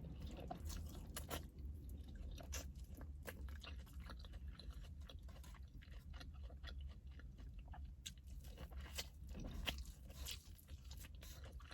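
A person chewing and crunching food close to the microphone, with many small wet mouth clicks scattered irregularly throughout, over a steady low hum.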